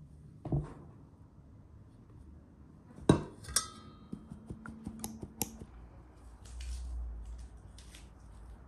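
Stainless mesh sieve of flour knocking against an enamel bowl while sifting: one loud ringing clink about three seconds in, then a quick run of lighter metallic taps and clinks. A soft low rumble follows near the end.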